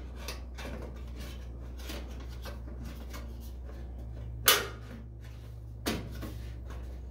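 Stamped sheet-metal access cover being fitted onto the back of an electric range: light scrapes and clicks, then a sharp metallic knock about four and a half seconds in and a smaller one a second and a half later as it seats against the panel. A steady low hum runs underneath.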